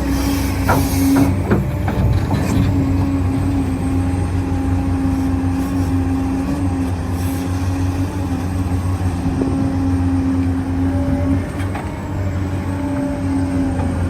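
Small electric motors and gearboxes of 1:14 scale HUINA RC construction machines running with a steady whine and hum, with a few clicks and knocks early on.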